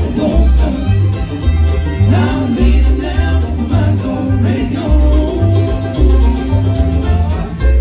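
Bluegrass band playing: banjo picking over guitar, with a voice singing. An upright bass plays strong alternating low notes about twice a second.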